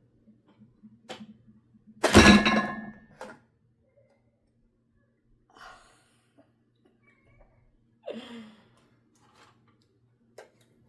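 A loud, breathy exhaled sigh about two seconds in, with a few faint clicks and knocks scattered around it.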